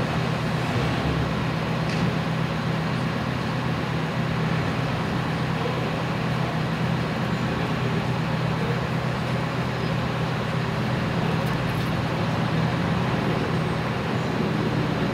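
Steady outdoor traffic noise with a constant low engine hum underneath, unchanging throughout.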